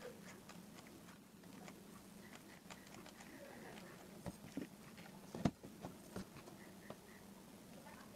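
Faint steady low hum with scattered small clicks and taps, the loudest about five and a half seconds in.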